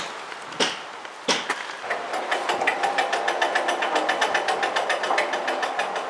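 A trigger spray bottle squirts automatic transmission fluid onto a sawmill's lift chain three times. From about two seconds in, the freshly oiled chain runs over its sprockets with a rapid, even clicking and a steady whir.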